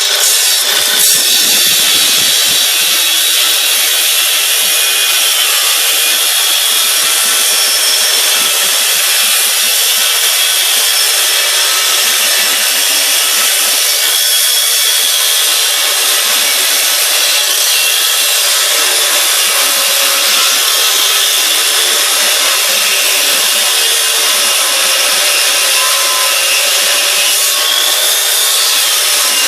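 Angle grinder mounted in a cutting stand, running steadily and cutting through sheet material with a continuous high whine and grinding hiss.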